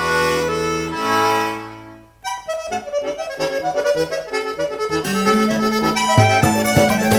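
Background music: sustained accordion chords fade out about two seconds in, then a new folk-style tune starts with quick plucked notes. A bass line comes in about five seconds in, and a beat follows a second later.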